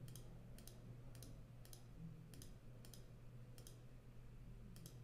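Faint computer mouse clicks, about eight spaced irregularly, as anchor points are placed one by one with the pen tool. A faint low hum runs underneath.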